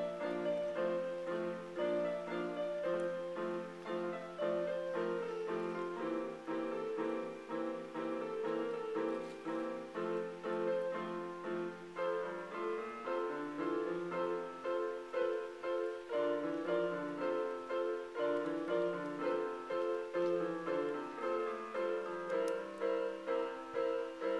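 Piano music on a keyboard: a steady, repeating pattern of notes, with a lower line of notes moving up and down from about halfway through.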